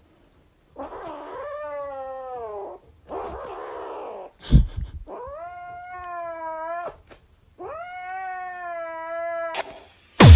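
Grey kitten giving four long, drawn-out yowls, the second one rough and raspy, with a single sharp thump a little before halfway through.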